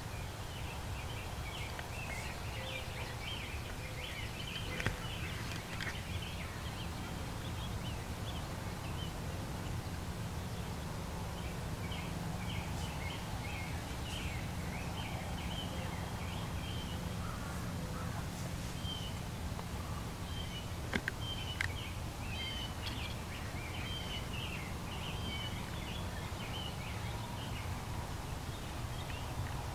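Songbirds chirping and singing in a spring morning chorus over a steady low outdoor rumble, with two brief faint clicks, about five seconds in and about twenty-one seconds in.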